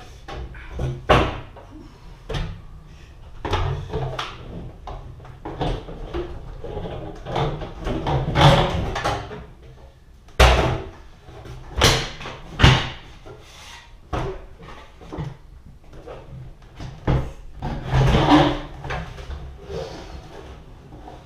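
A new window unit knocking, bumping and scraping against the opening's wood framing and metal flashing as it is worked into the rough opening, with several sharp knocks about ten to thirteen seconds in. It is a tight fit: the nailing flange catches on the flashing and the unit will not go in.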